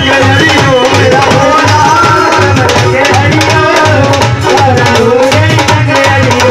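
Loud Hindu devotional jagran music: a hand drum beats a steady rhythm under a wavering melody line.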